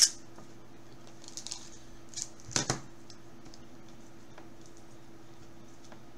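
Hands handling a trading card in a rigid plastic top loader: a plastic clack at the start and a sharp clack about two and a half seconds in. After that come faint marker strokes on the plastic over a steady low hum.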